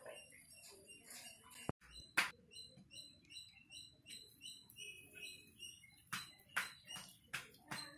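Small birds chirping over and over in short high notes, with a few sharp clicks or knocks among them; the sound drops out briefly about two seconds in.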